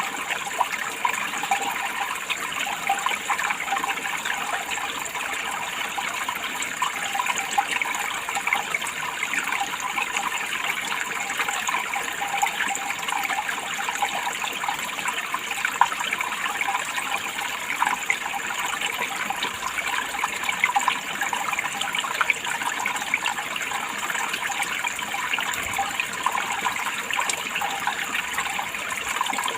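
Running water, steady and unbroken, with a fine, continual splashing and little low rumble.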